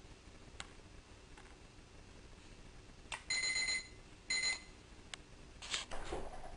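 An electronic doorbell, pressed by a cat, buzzing twice in quick succession. Each ring is a short, steady, high tone, the first about half a second long and the second shorter, with a click just before the first. A brief rustling noise follows near the end.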